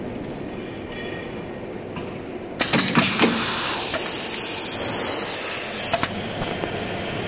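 Corrugated plastic hose extrusion line and its automatic cutter running with a steady mechanical noise. A few seconds in, a few clacks come with a loud hiss that holds for about three seconds and then cuts off sharply.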